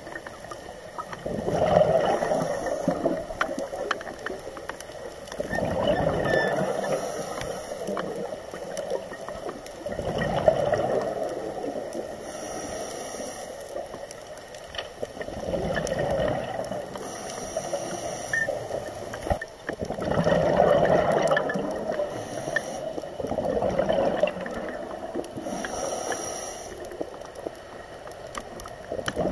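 Scuba diver breathing through a regulator, heard underwater: a short hiss on each inhale and a gush of exhaled bubbles about every four to five seconds, about six breaths in all.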